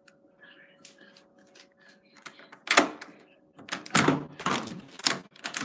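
Faint clicks, then from about two and a half seconds in a run of loud, sharp knocks and clunks, under a faint steady hum.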